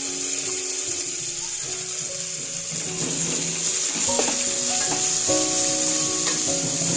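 Onions and green chillies sizzling as they fry in ghee and oil in a pressure cooker, a steady hiss throughout. Instrumental background music plays over it, growing a little louder about four seconds in.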